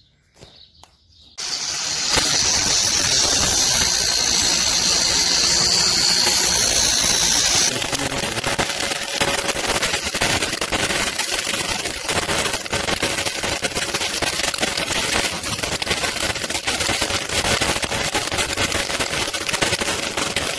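Electric arc welding on steel: the arc strikes about a second and a half in and runs continuously, a steady high hiss at first, turning to a dense crackle from about eight seconds in.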